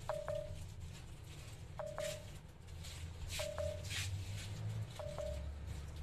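A Samsung Galaxy J4's alert beep repeating four times, about every second and a half: each a short click followed by a brief low tone that fades. It sounds while the phone's charging is stopped by its battery over-temperature warning.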